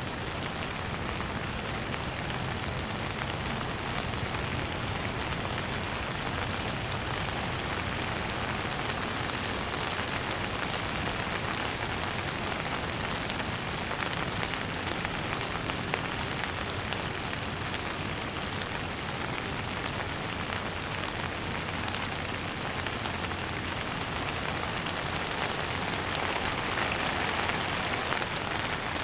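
Steady rain falling, a dense even hiss of many drops with fine individual drop ticks, getting slightly heavier near the end.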